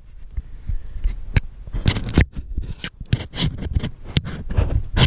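Handling noise from a handheld camera being moved: irregular knocks and scrapes over low thumps and rumble.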